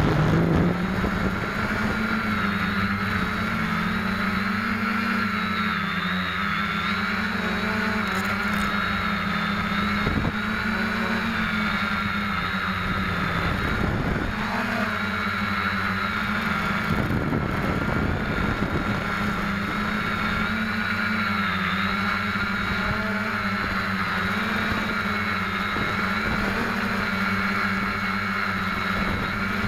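SK450 quadcopter's brushless motors and propellers running in flight, a steady multi-tone hum and whine whose pitch wavers gently with throttle, heard from the camera on board. Rushing air noise swells over it a few times.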